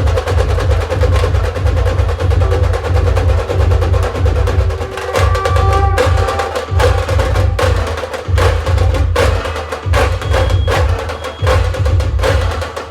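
Dhol and tasha drums played together in a dense, continuous groove: deep dhol beats under rapid, sharp tasha strokes.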